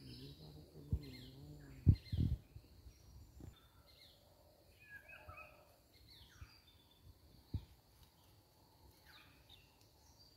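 Birds chirping with many short, high, falling notes over quiet outdoor background. A few dull low thumps break in, the loudest about two seconds in and another near the end.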